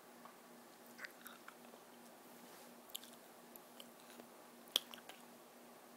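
Faint scattered clicks and small ticks, about half a dozen, the loudest nearly five seconds in, over a steady low hum.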